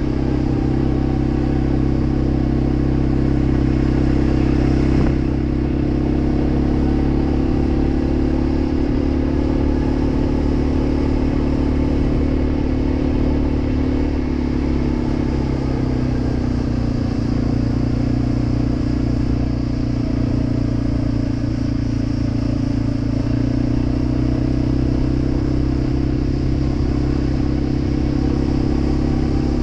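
Quad bike (ATV) engine running steadily while riding, with small changes in engine speed now and then.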